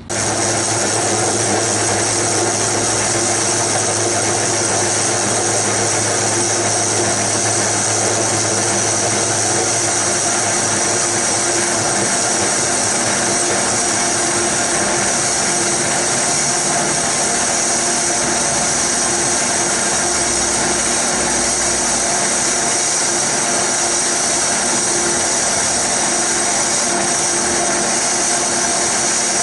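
Small bench metal lathe running steadily with a constant whine, its tool facing off a cast iron backing plate spinning on the spindle.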